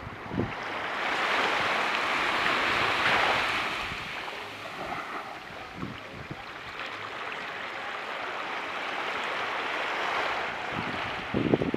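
Surf washing onto a beach, the rush swelling about a second in and again near the end, with a couple of short low thumps of wind on the microphone.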